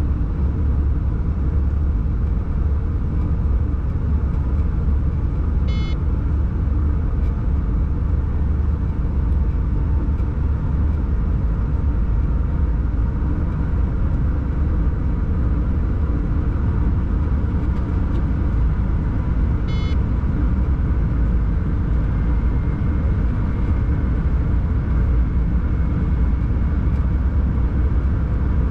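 Steady rumble and hum inside a moving locomotive's cab. Two short electronic beeps sound, about 6 and 20 seconds in.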